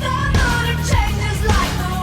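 Pop-rock song playing, with a steady drum beat, bass and a singing voice.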